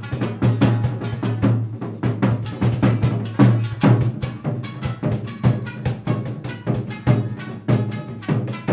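Taiko drums played in fast, dense strokes, with shamisen plucking woven through the drumming.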